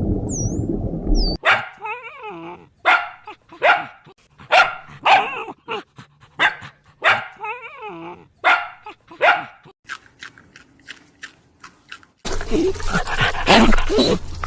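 Dog barking repeatedly: about ten sharp barks, then a quicker run of short, fainter yips. A low rumble comes before the barks start, and a dense burst of noisy sound comes near the end.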